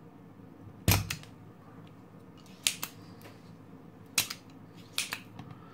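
Spring-loaded solder sucker (desoldering pump) firing with one sharp snap about a second in as its plunger springs back to suck molten solder off a pin. Several more clicks follow over the next few seconds as the pump is worked again.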